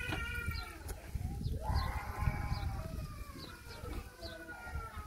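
A dog whining in long, high, slightly falling cries: one fades out about a second in, and a second starts about a second and a half in and lasts about three seconds. Short faint chirps repeat about every 0.7 s, over low scuffling from the dog eating out of a plastic bowl.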